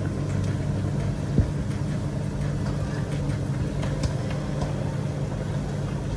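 A steady low hum with a single short click about one and a half seconds in.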